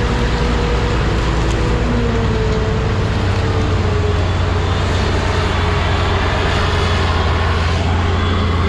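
Heavy farm machinery engine running steadily under load, with its pitch drifting slightly. It cuts off suddenly at the end.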